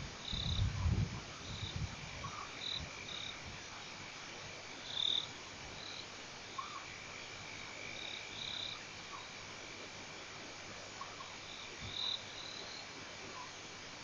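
Frogs calling: short high chirps about every second, over a steady high drone. Low rumbling is heard in the first second or two.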